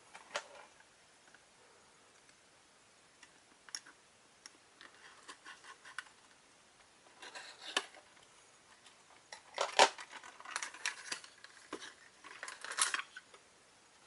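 A small cardboard box being opened by hand: a small blade cutting at its top and the leather pouch being pulled out make scattered clicks, scrapes and rustles. The loudest clusters come about ten seconds in and again near the end.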